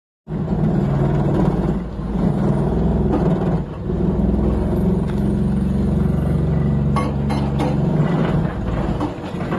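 Hydraulic breaker on a Doosan excavator hammering rock, a rapid, steady pounding over the running engine. A few sharp cracks of rock come near the end, and then the hammering stops.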